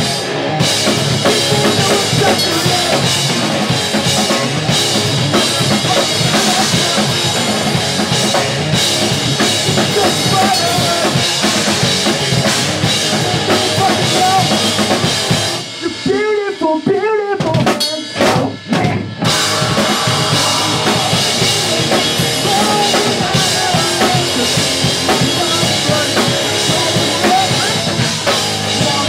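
Live pop punk band with two electric guitars, bass guitar and a drum kit playing loud. About halfway through the drums drop out for a few seconds under a wavering, pitch-bending line before the full band comes back in.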